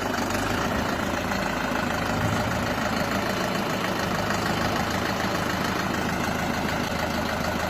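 Tractor diesel engine running steadily at low revs, close by, as the four-wheel-drive tractor is edged into position on a flatbed trailer.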